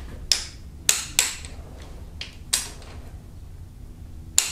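Click-type torque wrench giving about half a dozen sharp clicks a fraction of a second to a second apart as it breaks over at its set torque of about 30 N·m. Each click signals that a large camshaft cap bolt on the 2.4 GDI cylinder head has reached its torque spec.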